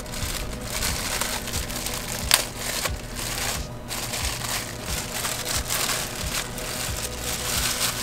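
Crinkling and crushing of packaging as a new subwoofer is unwrapped and handled: an irregular rustle with scattered clicks.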